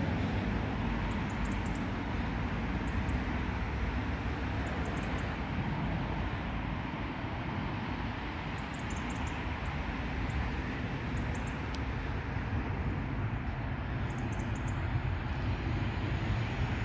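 Steady low outdoor rumble that builds over the last second or two as a GWR Intercity Express Train approaches from the distance, with faint high ticks now and then.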